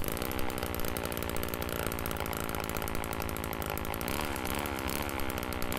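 Two-stroke chainsaw engine powering a Cobra chainsaw-driven capstan winch, running steadily with a fast, even beat.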